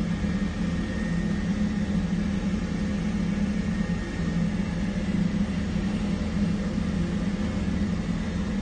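Vehicle engine idling: a steady low hum.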